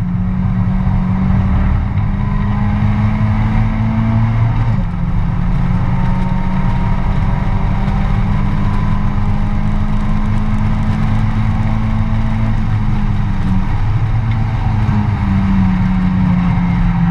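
Mazda MX-5 race car's four-cylinder engine heard from inside the cockpit, pulling hard under acceleration: its pitch climbs slowly and falls sharply twice, about five and thirteen seconds in, as it shifts up a gear.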